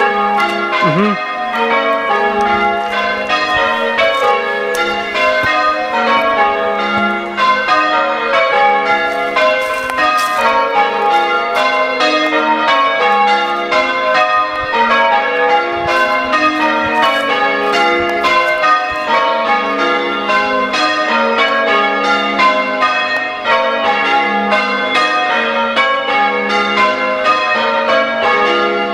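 A ring of six church bells being change-rung, the bells struck one after another in a continuous, even rhythm.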